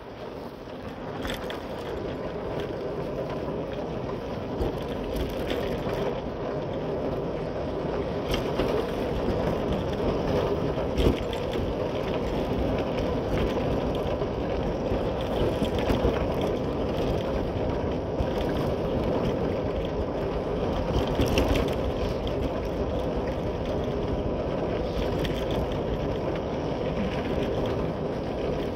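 Motorcycle on the move: the engine running under a steady rush of wind and tyre noise, with small scattered clicks and rattles. It grows louder over the first few seconds, then holds.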